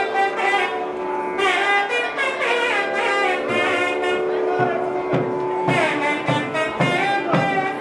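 Nadaswaram playing an ornamented Carnatic melody, its pitch bending and sliding. Thavil drum strokes join in from about halfway through.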